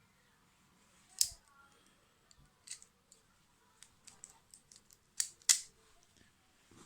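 Metal multi-tool being handled and worked on, giving a scatter of sharp metallic clicks and ticks. The loudest are a close pair about five seconds in.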